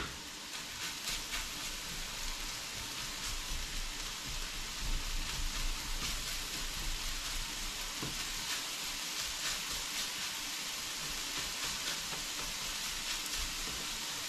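Eggs sizzling in butter in a small skillet beside a pan of frying rice and vegetables: a steady frying hiss, with light scrapes and taps as a spatula breaks the eggs up.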